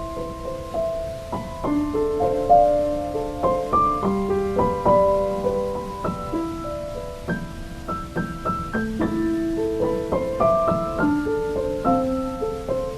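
Calm, wordless piano music: a slow melody of single notes over soft chords, each note struck and left to fade.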